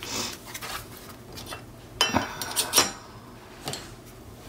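Light clicks and small metallic clinks from handling the album pages and tools on the cutting mat: a couple of sharp clicks about two seconds in and near three seconds, a fainter tap later, and soft paper handling between them.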